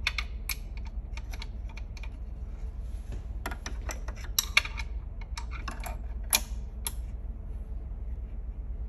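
Small metal wrench clicking and tapping irregularly against a nut and the grinder's sheet-metal housing while the sleeve's 10 mm nuts are loosened, over a steady low hum; the clicks thin out about seven seconds in.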